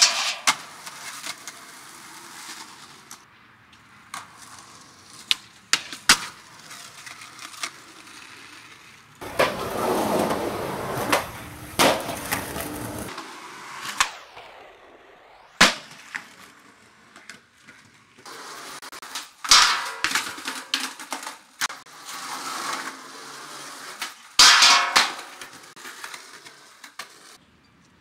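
Skateboarding: wooden boards popping and slapping down hard on landings, wheels rolling on concrete, and boards scraping along metal handrails. There are many sharp cracks and longer stretches of rolling and scraping noise.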